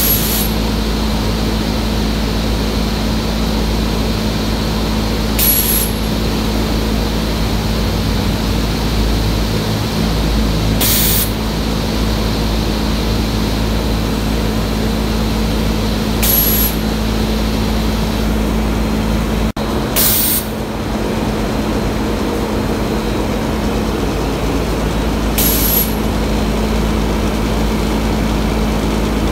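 Automatic powder coating booth running: a steady loud rush of air over a low machine hum from the booth and its spray guns, broken by a short sharp hiss of compressed air about every five and a half seconds.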